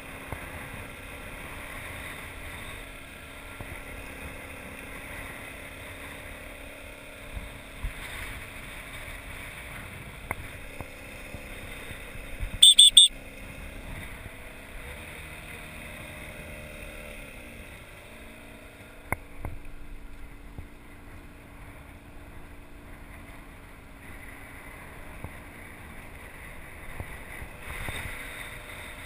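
Outboard motor of an inflatable boat running at low speed, a steady hum that shifts pitch as the throttle changes about halfway through, with water and wind wash around it. A brief, loud, shrill high-pitched sound of a few quick pulses cuts in just before the pitch change.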